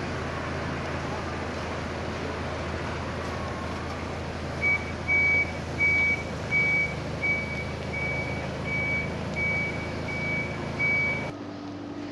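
Steady street traffic rumble. About halfway through, a high electronic beep starts repeating, about three beeps every two seconds for roughly ten beeps, and the background changes suddenly near the end.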